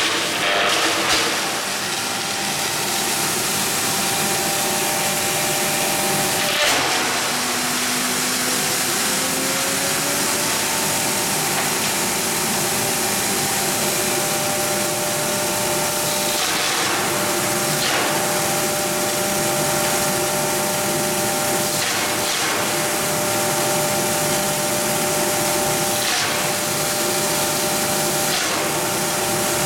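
Hammer-mill crusher running steadily with its blower: an even rushing noise over a steady hum, with a short rasping crunch every few seconds as wood strips fed into the hopper are smashed by the hammers.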